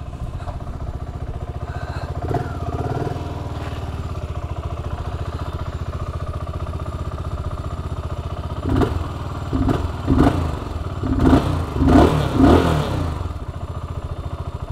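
BSA Gold Star 650's single-cylinder engine idling with a steady, lumpy beat. In the second half it is given about six quick throttle blips, each rising and falling in pitch.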